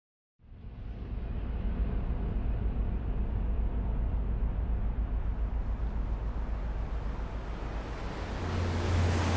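A low, steady rumble like distant city traffic fades in abruptly, with a low hum joining near the end as it grows a little louder.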